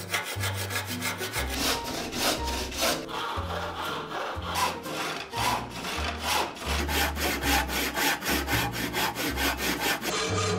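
Hand saw cutting through a block of wood clamped in a bench vise: a steady rhythm of rasping push-and-pull strokes, about three a second.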